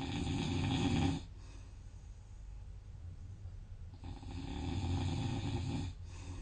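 A sleeping person snoring: two long snores, the first dying away about a second in, the second starting about four seconds in and lasting roughly two seconds.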